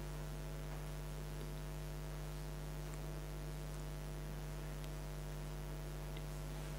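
Steady electrical mains hum: a low, unchanging buzz with a ladder of evenly spaced overtones, with a few faint ticks.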